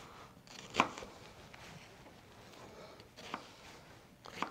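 Kitchen knife cutting through an onion onto a plastic cutting board. It gives a few separate sharp knife strikes at uneven spacing, the loudest about a second in and two more near the end.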